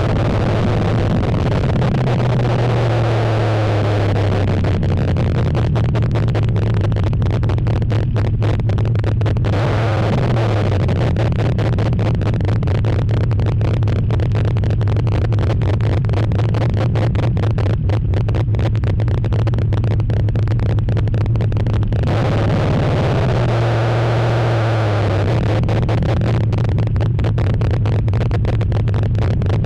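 Chevy V8 engine in a Nissan Frontier pickup running hard, heard through an overloaded GoPro microphone that distorts it. The engine note holds steady, dips and recovers about ten seconds in, and again in the last third.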